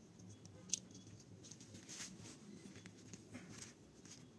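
Faint handling of a small plastic earphone control module and charging cable by fingers, with one sharp click about a second in and a few lighter ticks.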